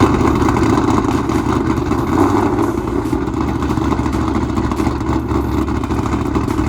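Ford Mustang V8 engine running steadily through a loud exhaust.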